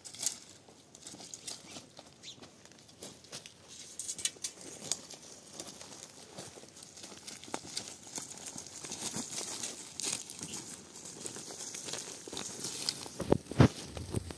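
Irregular rustling and crackling, like material being crumpled or handled, with a couple of louder knocks shortly before the end.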